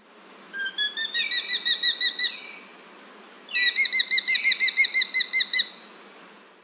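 Oriental hobby calling: two bouts of rapid, evenly repeated high notes, about six or seven a second, with a pause of about a second between them. The second bout is louder.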